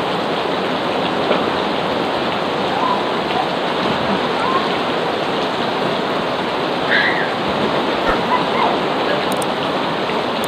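Heavy rain pouring onto a swimming pool and its surrounds, a dense, steady hiss. Brief faint voices come through it now and then.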